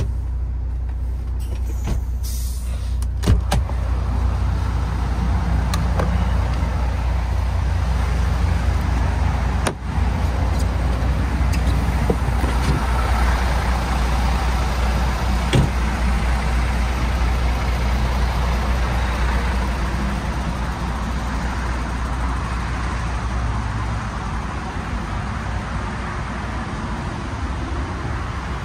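MAN TGX 18.510 truck's diesel engine running with a steady low drone, with road noise building after several seconds. Three sharp clicks or knocks stand out, the loudest about three seconds in.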